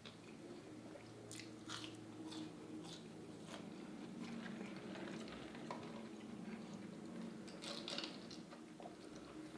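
A person chewing food close to the microphone: soft, irregular wet mouth clicks and small crunches.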